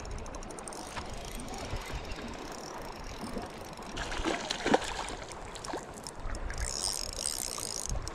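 Spinning fishing reel clicking in fast runs of fine ticks while a hooked trout is fought. The longest run comes near the end, with a few sharper knocks in the middle.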